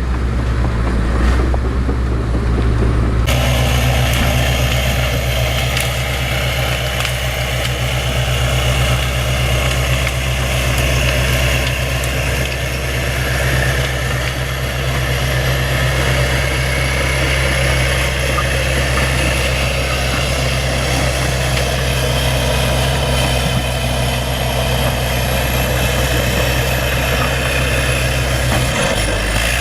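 Bulldozer's diesel engine running steadily, a low drone with a hiss above it; the sound changes abruptly about three seconds in.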